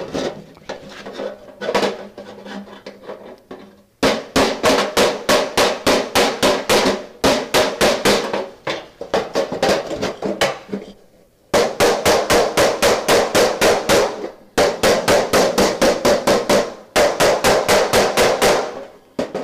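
Rapid light hammer taps on sheet steel, about five a second in runs of two to three seconds, each with a short metallic ring: a filler panel in a 1966 Chevelle's steel dash being tapped flat to take down a high spot. A few scattered knocks come first, before the steady runs of taps begin.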